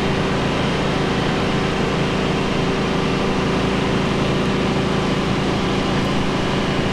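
Steady low engine hum with a held tone, running at an even level without rising or fading.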